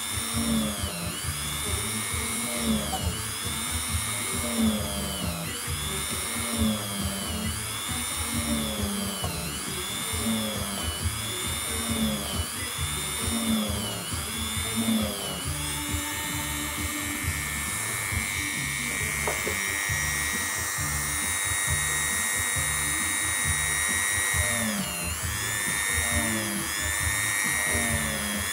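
Handheld rotary tool whining at high speed on leather, its pitch dipping and recovering about every two seconds, then holding steadier after the middle with one more dip near the end. Background music with a repeating low melody plays along.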